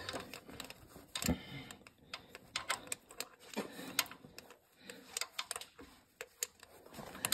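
Light, irregular clicks and taps of metal fittings being handled as a fuel line fitting is lined up and worked onto a mechanical fuel pump, with a louder knock about a second in.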